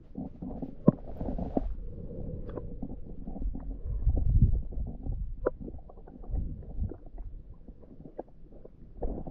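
Muffled, low underwater rumble of moving water, heard through an underwater camera, with a few sharp clicks and knocks scattered through it.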